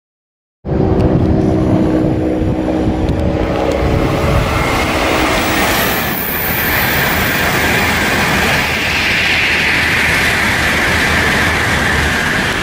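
N700-series Shinkansen bullet train passing through a station at about 243 km/h without stopping: a loud, steady rushing noise from the train. The noise cuts in suddenly about half a second in, and a brighter high hiss grows over the second half as the train passes.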